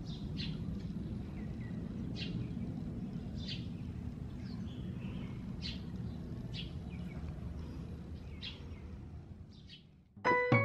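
Outdoor ambience: short bird chirps about once a second over a steady low rumble. Near the end it cuts off and soft piano notes begin.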